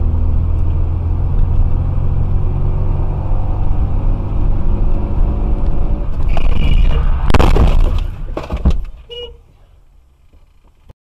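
Steady engine and road rumble inside a moving car's cabin. About six seconds in comes a brief high squeal, then a loud bang and clatter like a collision, after which the sound drops to a faint level.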